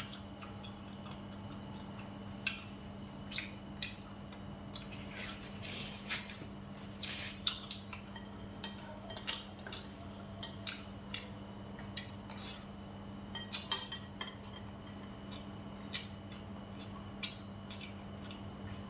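Chopsticks clicking and scraping against ceramic bowls and plates while eating, in short irregular taps, over a steady low hum.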